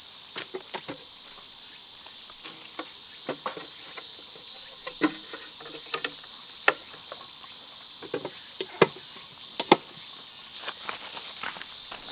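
Steady high-pitched chorus of summer insects, with scattered short clicks and knocks over it.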